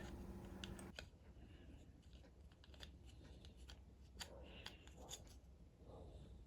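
Near silence with a few faint, scattered clicks and soft handling noises of small parts, as the keyboard's pitch-bend assembly is fitted back.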